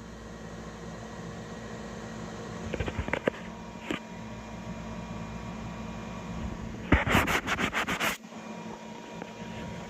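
3D printer running, with a steady fan hum that holds several fixed pitches. A few sharp clicks come around three seconds in, and a loud quick run of about eight clacks comes about seven seconds in.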